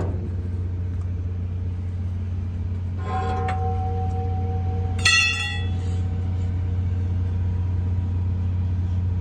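Cummins QSN14 six-cylinder diesel engine running at a steady idle just after its valve and injector adjustment. Two brief metallic rings sound over it about three and five seconds in, the second louder.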